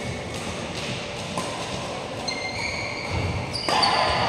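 Court shoes squeaking on a synthetic badminton court mat: several high squeals in the second half, the loudest near the end, after a few sharp taps of racket on shuttlecock.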